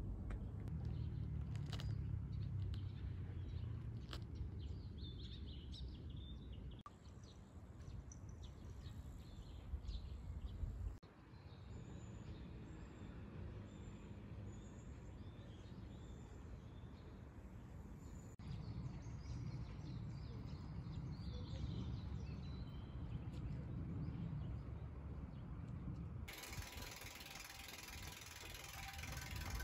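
Outdoor ambience with a steady low rumble and small birds chirping now and then. A few sharp clicks come near the start. Near the end a bicycle rolls along with a steady hiss and the ticking of its freewheel ratchet.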